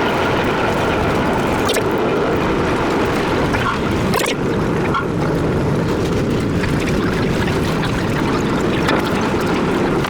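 Century-old Lo-V subway car running along the track, a loud steady rumble of wheels on rails with a few sharp clicks.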